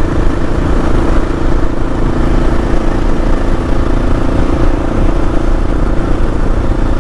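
Kawasaki KLR650's single-cylinder engine running steadily at a highway cruise of about 46 mph, under a heavy low rumble of wind and road noise.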